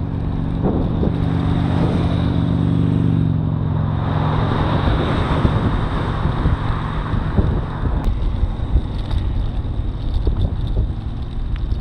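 Wind rumbling on the microphone and road noise from a recumbent bicycle being ridden along a road. A motor vehicle's hum fills the first few seconds, and a swell of tyre hiss about four to six seconds in sounds like a car going by.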